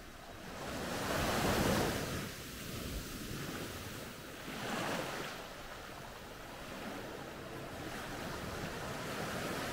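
Small waves washing up on a sandy beach: two surges about three seconds apart, the first the louder, then a steady wash.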